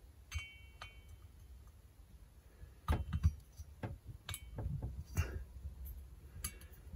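Scattered light metal clicks and taps, a few with a short ring, as a new cylinder is fitted down over the piston of a Stihl MS170 chainsaw engine. They are sparse at first and come more often from about three seconds in.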